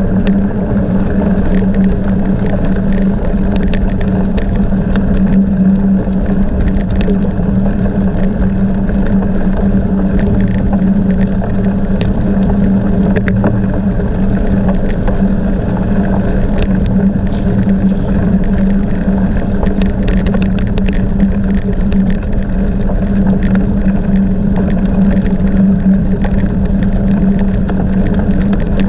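A bicycle on the move: steady tyre rolling and wind noise with a constant low hum, and scattered light ticks and clicks throughout.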